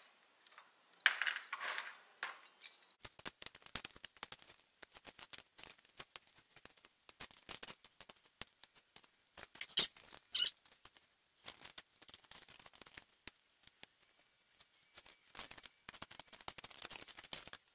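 Small wooden cut-out letters clicking and clattering against each other and against a wooden board as they are picked through in a pile and set down. A quick run of light clicks starts about three seconds in.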